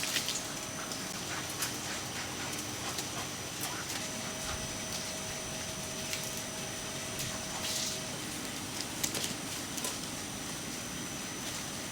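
Ducks in a foie gras farm shed, their calls and movement over a steady mechanical hum with a thin high tone. Scattered short clicks and knocks occur throughout.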